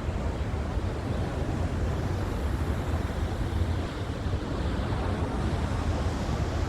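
Steady wind buffeting the microphone, heaviest as a low rumble, over the rush of sea surf.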